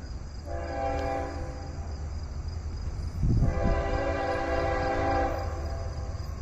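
Norfolk Southern freight locomotive's multi-note air horn sounding two long blasts for a grade crossing, the first part of the long-long-short-long crossing signal, over a steady low rumble. A brief low rumble surges between the blasts.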